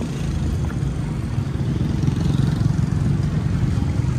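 Street traffic: a motor vehicle engine running close by as a steady low rumble that swells a little around the middle.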